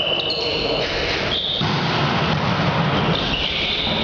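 Sports hall noise during a volleyball rally, with high squeaks of shoes on the gym floor, one around the start, one about a second and a half in, and a longer one near the end.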